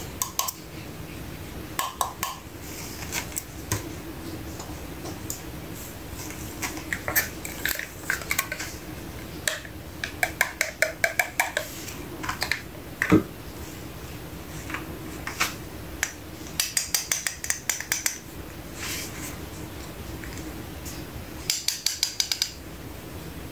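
Small hard plastic toy pieces clicking and tapping as they are handled, with a few quick runs of rapid clicks, over a faint steady hum.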